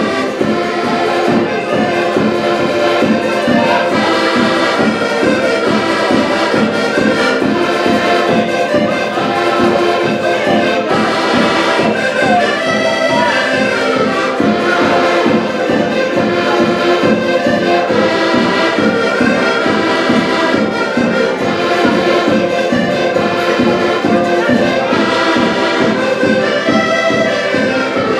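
Ensemble of six diatonic button accordions (Portuguese concertinas) playing a dance tune together, with a steady, even rhythm.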